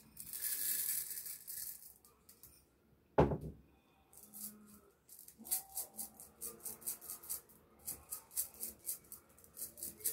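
Dry rice pouring through a funnel into a fabric pouch with a hiss, then a single sharp knock about three seconds in. From about five seconds in, the rice rattles in quick short strokes, about four to five a second, as the funnel and pouch are shaken to settle the grains into a sewn channel.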